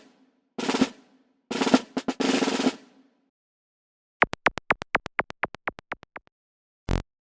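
Intro sound effects: a couple of drum hits and a snare drum roll, then a quick run of about a dozen short falling blips that fade away, and one short buzz near the end.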